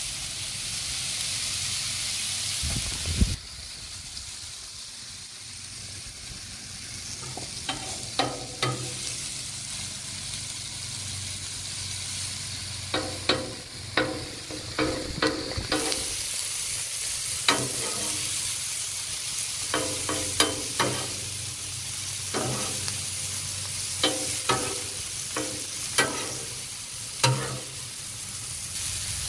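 Sliced mushrooms and diced onions sizzling in oil and butter on a Blackstone steel flat-top griddle, while a metal spatula scrapes and clicks against the griddle as they are turned. The sizzle drops after a sharp knock about three seconds in and comes back louder near the middle, and the spatula clicks come in quick clusters through the second half.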